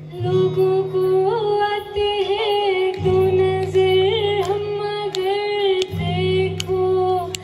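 A woman singing long held notes while accompanying herself on an acoustic guitar, the guitar chords sounding afresh about every three seconds.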